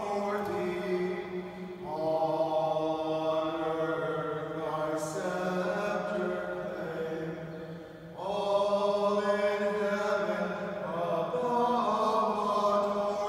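A slow sacred hymn or chant sung in long held notes, with new phrases starting about two seconds and eight seconds in.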